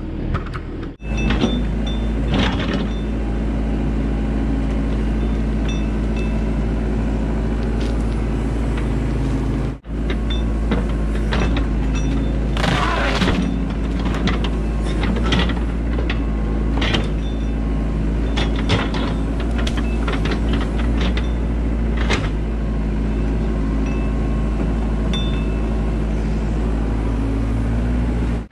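A machine's engine running steadily throughout, with scattered scrapes and knocks from digging into soil.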